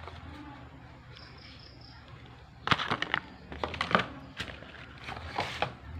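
Unboxing handling noise: a cardboard box and a plastic earbuds charging case rustled, clicked and knocked on a table, in a few quick clusters of sharp clicks starting a little before halfway.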